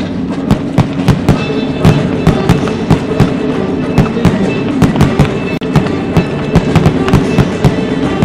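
Fireworks going off in quick, irregular succession, several sharp bangs and cracks a second starting about half a second in, over loud music from the pyromusical soundtrack.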